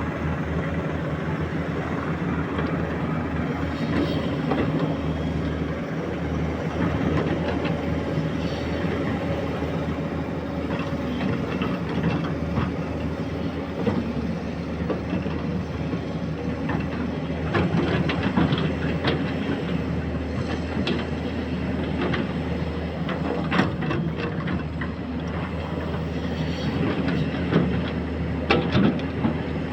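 Excavator's diesel engine running steadily under load, with irregular metallic clanks and knocks from the bucket, arm or tracks, more frequent in the second half.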